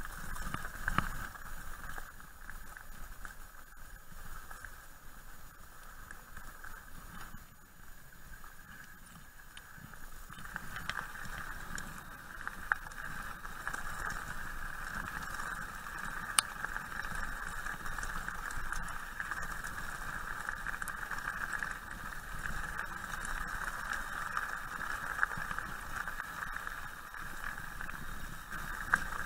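Mountain bike riding over a gravel track: steady tyre and gravel rolling noise that grows louder about ten seconds in, with a few sharp knocks from bumps.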